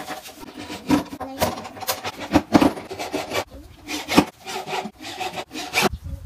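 Irregular wooden scraping, rubbing and knocking on a wooden subwoofer cabinet as it is worked on by hand and a wooden panel is handled and fitted, with several sharp knocks among the scrapes.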